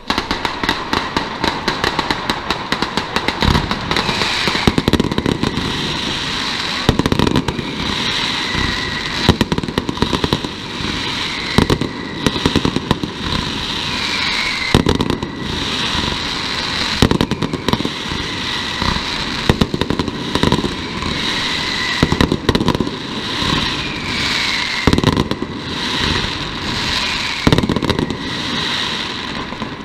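Mascletà firecrackers going off in a dense, rapid crackling barrage that starts suddenly, with heavier bangs every second or two and short whistles falling in pitch among them.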